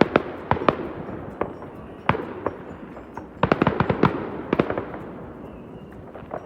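Fireworks going off: scattered sharp bangs, with a rapid cluster of bangs a little past the middle, over a steady hiss of more distant fireworks.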